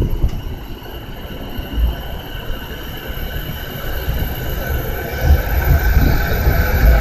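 JR East E233-5000 series electric train pulling away from the platform: its inverter-driven traction motors give a whine that grows and slowly rises in pitch from about halfway through as the train picks up speed, over a low rumble.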